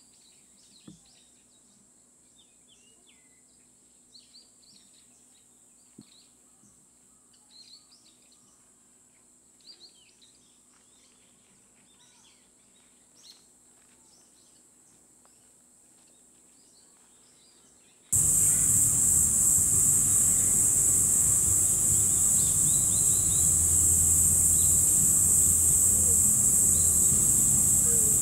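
Quiet woodland ambience with faint small-bird chirps and a few soft clicks in the leaf litter. About two-thirds of the way through it cuts to a loud, steady, high-pitched insect chorus.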